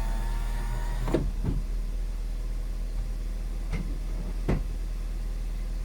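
VW Eos folding hardtop and power windows in motion: an electric motor whine stops with a clunk about a second in, then a few separate mechanical clicks and knocks follow. A steady low hum from the idling engine lies underneath.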